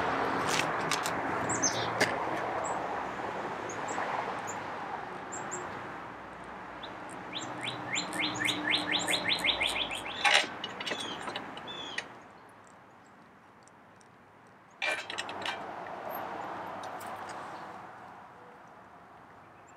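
Wild birds chirping, including a fast trill of about seven repeated notes a second around eight seconds in, over a steady rushing noise that drops away about twelve seconds in. A couple of sharp clicks sound, one about ten seconds in and one near fifteen seconds.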